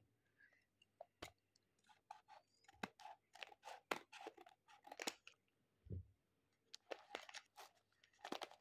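Scissors snipping into a paper-wrapped gift pouch and the folded notebook paper crinkling as it is handled and pulled open: a scattered run of short, quiet crackles and snips, with a soft bump about six seconds in.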